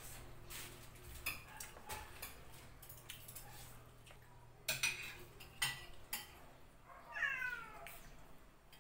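Forks and spoons clinking and scraping on plates, in separate sharp clicks, the loudest about halfway through. Near the end comes a short falling cry.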